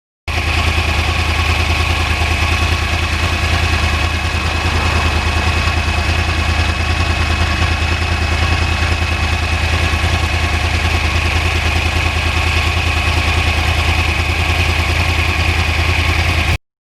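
2009 Yamaha R1 crossplane's inline-four engine running at a steady, unchanging speed, with a thin steady whine above the engine note. It cuts in abruptly and cuts off just as abruptly.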